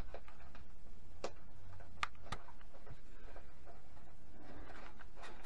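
Small-bladed craft knife cutting through the little wooden tabs (sprigs) that hold laser-cut kit parts in their sheet: a few sharp clicks and ticks as the blade snaps through the wood, the loudest a little after two seconds in.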